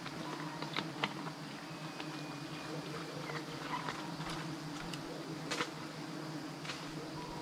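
A swarm of giant honeybees (Apis dorsata) buzzing in a steady, low drone from a large exposed colony on a tree branch, with scattered sharp clicks over it.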